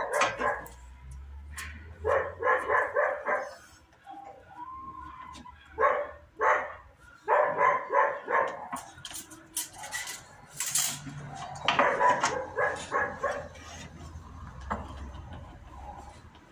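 A dog barking in repeated bouts of quick barks, with a few light knocks and taps in between.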